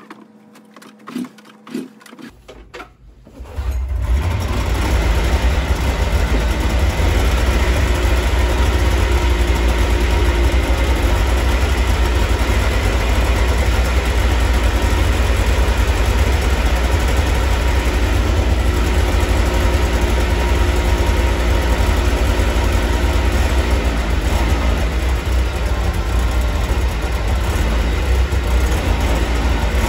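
Polaris two-stroke snowmobile engine starting about three and a half seconds in, then idling steadily.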